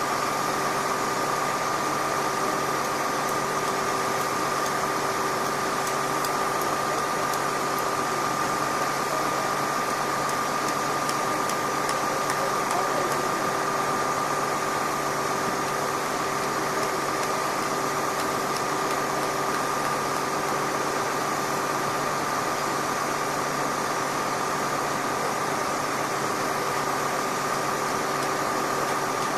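Steady drone of idling machinery, with a constant high whine over an even hiss; it does not change at all.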